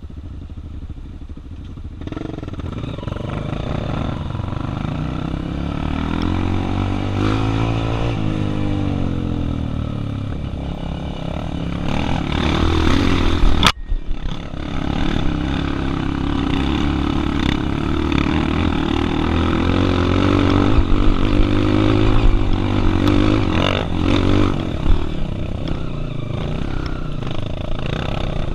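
Trail motorcycle engines running under load, revving up and down as the bikes climb and shift, with two engine notes crossing in pitch about 7 to 9 seconds in. A single sharp knock about 14 seconds in.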